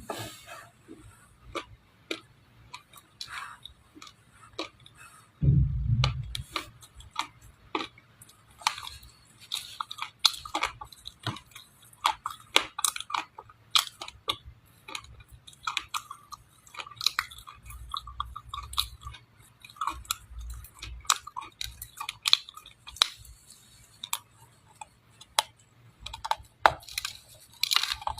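A person biting and chewing dry edible clay close to the microphone, giving a quick run of sharp crunches and crackles. There is a dull low thump about five and a half seconds in.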